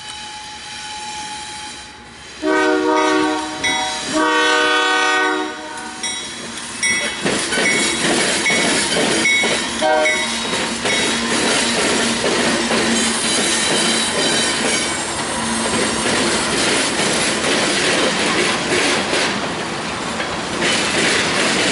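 Union Pacific diesel locomotive sounds its horn in two long blasts a few seconds in, then the freight train rolls past with wheels clattering over the rails and occasional wheel squeal.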